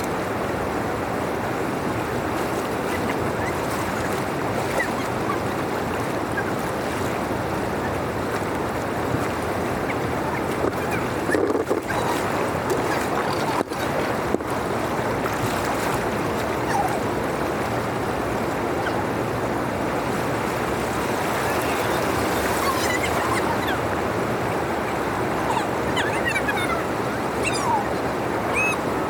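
Steady rush of water flowing through a drainage channel, with a few faint chirps near the end.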